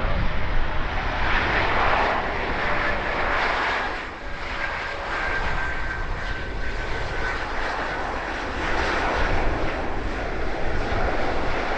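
Airbus A330-300 jet airliner's engines running with a steady rumble and a thin whine that falls slowly in pitch, mixed with gusty wind buffeting the microphone.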